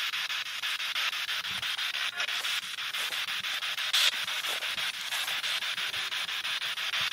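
Spirit box radio sweeping through stations: a steady hiss of static chopped into rapid, evenly spaced pulses, with a brief louder burst about four seconds in.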